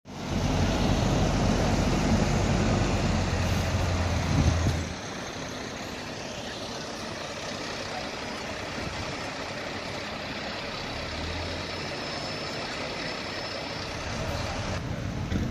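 Heavy diesel engine of a fire truck idling, a loud low steady rumble that drops off after about five seconds to a quieter steady background of engine and street noise.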